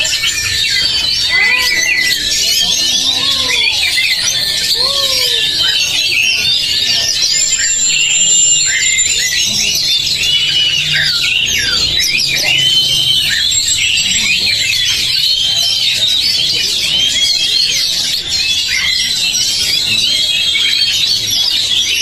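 Many caged oriental magpie-robins singing at once: a dense chorus of overlapping high whistles and chattering phrases. A few lower rising-and-falling calls come through in the first five seconds.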